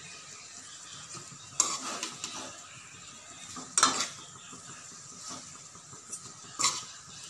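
Metal slotted spatula tossing noodles in a metal kadai, scraping and knocking against the pan several times, loudest about one and a half and four seconds in, over a steady low sizzle.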